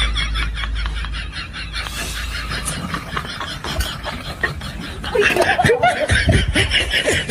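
Hearty laughter in quick, rapid bursts, high-pitched at first, then deeper and louder from about five seconds in.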